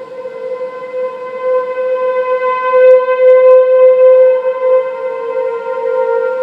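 Outdoor tornado warning siren sounding a loud, steady tone during a test. Its loudness swells to a peak about three seconds in, then eases off again.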